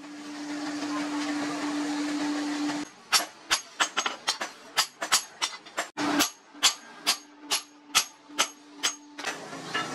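For about three seconds a coal forge hisses with a steady hum under it. Then a hand hammer strikes the hot leaf-spring steel cleaver blank on an anvil, about three sharp blows a second, with a short break near the middle.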